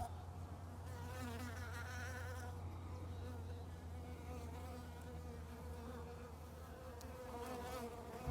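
Bees buzzing in a steady drone, the pitch wavering slightly.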